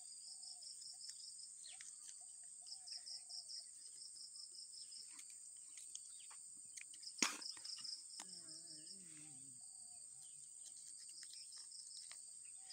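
Insects chirping steadily in a fast pulsing rhythm, with faint wavering calls above it. A single sharp click comes about seven seconds in, and a short soft hum a little after.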